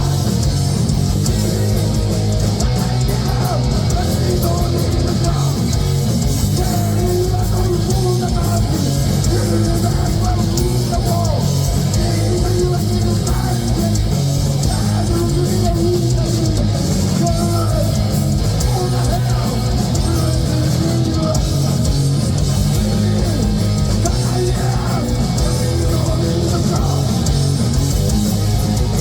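Heavy metal band playing loud and live: distorted electric guitars, bass and drum kit in a dense, continuous wall of sound.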